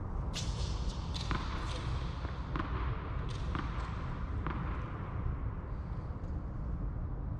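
Tennis ball struck by rackets and bouncing on the court during a rally: a string of sharp pops in the first half, then no more hits. A steady low rumble runs underneath.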